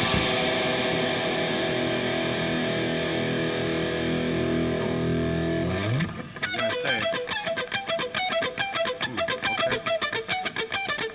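Live rock music with distorted electric guitar: a held chord rings for about six seconds, then after a quick downward slide the band breaks into a fast, rhythmic picked figure.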